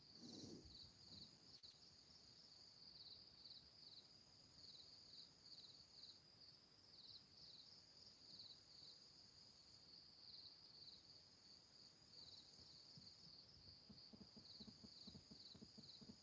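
Near silence, with faint, steady chirping of insects pulsing on and off in the background.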